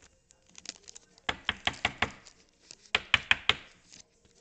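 Sharp clicking taps in two quick runs of about five each, from a baseball card pack being handled and opened by hand.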